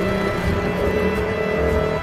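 Tense, dark background music with sustained tones over a pulsing low beat.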